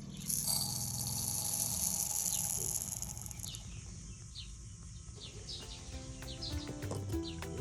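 Ducklings peeping: short, high, falling chirps scattered through, over a steady high hiss in the first three seconds. Music with held notes comes in about six seconds in.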